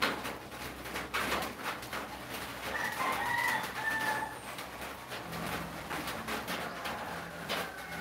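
A rooster crowing once, about three seconds in, over scattered light knocks.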